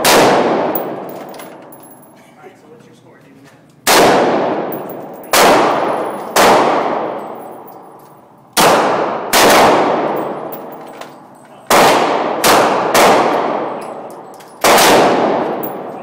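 Glock 9mm pistol fired about ten times in an irregular rhythm, sometimes two or three shots in quick succession, sometimes a pause of a few seconds. Each shot is a sharp crack followed by a long echoing decay in the enclosed indoor range.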